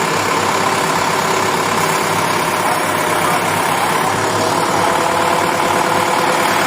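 Truck engine idling, steady and unchanging.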